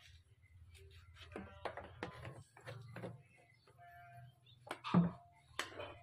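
Plastic motor-oil jugs being picked up and set down on a wooden pallet: a run of short knocks and clunks, the loudest about five seconds in, over a low steady hum.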